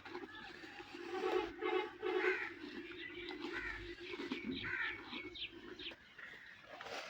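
Birds calling: three short, harsh caw-like calls about a second in, then a run of short high chirps a little past the middle.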